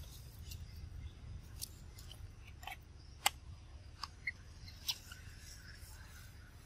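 A handful of scattered sharp clicks and crackles, the loudest a little past the middle, over a low steady rumble. They are the small sounds of macaques moving and handling their babies on dry leaves and stony ground.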